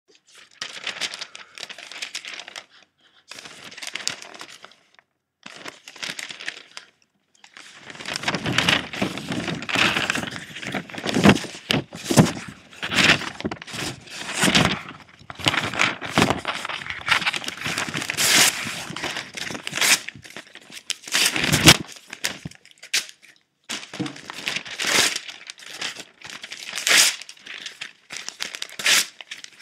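Crinkling and crackling in irregular bursts, like something being crumpled: short bursts with gaps at first, then dense and louder from about eight seconds in, breaking up into separate bursts again after about twenty-two seconds.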